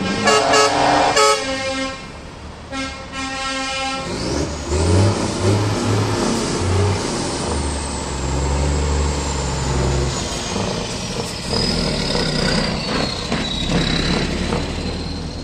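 Truck air horns sound twice in the first few seconds, a long blast and then a shorter one. After that, a MAN truck with an open exhaust passes close by, its engine running with deep pulsing exhaust notes and a high whistle that falls in pitch as it goes by.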